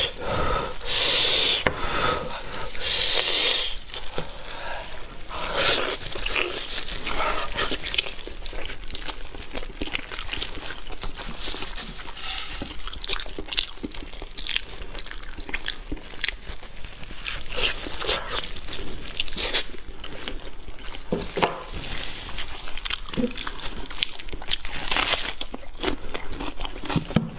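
Close-up eating sounds: wet chewing and lip-smacking, with many small clicks, as braised pork knuckle is chewed. Disposable plastic gloves crinkle as the meat is torn apart by hand.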